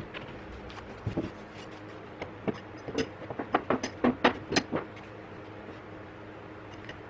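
A quick, irregular run of light knocks and clinks, about a dozen over three or four seconds, like steel pieces being handled and set down, over a steady low hum.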